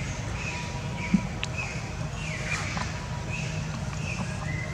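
Outdoor ambience: a steady low hum under short, high chirps and whistles that come every second or so, with one sharp click about a second in.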